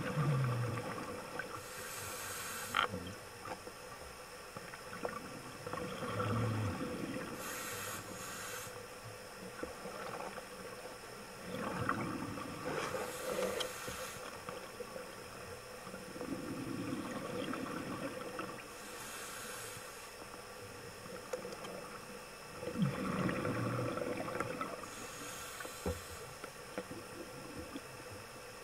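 Scuba diver breathing through a regulator underwater: a hissing inhale every five to six seconds, alternating with a low burbling rush of exhaust bubbles, over a faint steady hum.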